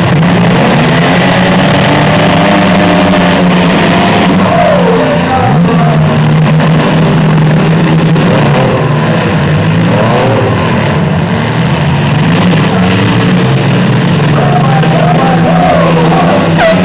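Several mini-truck demolition-derby engines running loud together and revving, their pitch rising and falling as the trucks push and ram each other.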